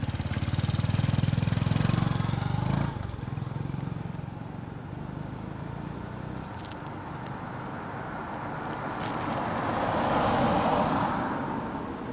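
Motor vehicle engine running with a steady low hum, which drops off about three seconds in. Near the end a vehicle noise swells and then fades.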